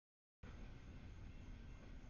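Near silence: faint steady background hiss and low rumble, after a moment of dead silence at the start.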